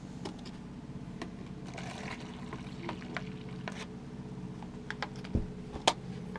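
Light clinks and liquid sounds as very strong black tea (chifir) is stirred in a cup, over a steady low hum, with a sharper click near the end.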